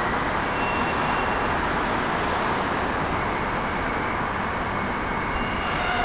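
Docklands Light Railway B07 Stock train standing at the platform, with a steady, noisy hum from its equipment. Near the end, whining tones start up as its traction drive begins to pull it away.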